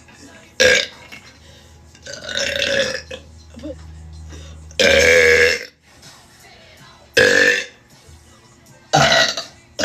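A woman burping loudly, five separate belches a second or two apart; the longest and loudest, a drawn-out belch, comes about five seconds in.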